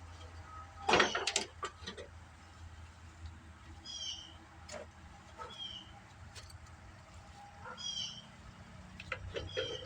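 Clatter of a lawn tractor's hood being unlatched and lifted off, loudest about a second in, followed by a few lighter knocks. Four short high chirps sound through it.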